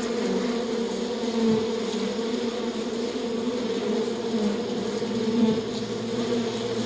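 Insects buzzing, a steady continuous drone.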